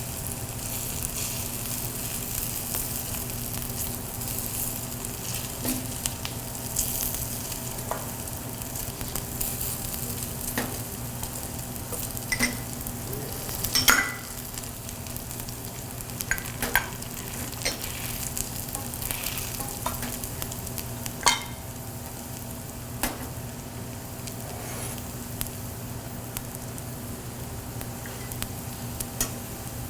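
Potato pancakes frying in a pan with a steady sizzle, broken by a dozen or so sharp clicks and knocks.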